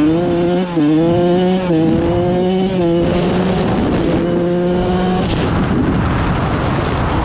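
Kawasaki KX112 two-stroke dirt bike engine revving hard, its note wavering up and down with the throttle; about five seconds in the clear engine note gives way to a rough rushing noise.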